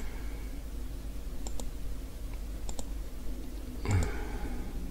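Computer mouse clicks: one click, then three quick double clicks a little over a second apart. A steady low hum runs under them, and a short low sound comes with the last pair.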